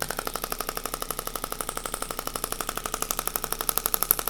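Shockwave therapy machine's applicator head firing rapid, evenly spaced clicking pulses, about a dozen a second, getting a little louder near the end. It is being worked into the patient's low-back tissue to break it up.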